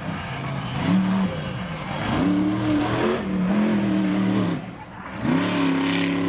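Avenger monster truck's engine revving hard in three bursts, each climbing in pitch and holding before dropping away; the middle burst is the longest.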